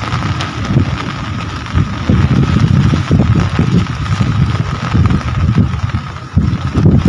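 Steady rain hiss overlaid by a heavy, gusting low rumble of wind buffeting the microphone. The rumble briefly drops away about six seconds in, then surges back.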